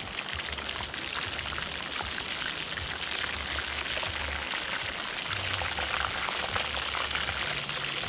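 Whole chicken deep-frying in a pan of hot oil, the oil sizzling and crackling steadily while the chicken is turned over with a fork.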